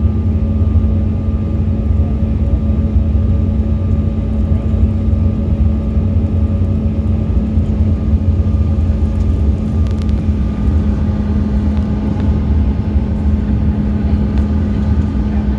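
Jet airliner cabin noise in flight: a loud, steady rumble of the engines and rushing air, with a constant low hum running through it.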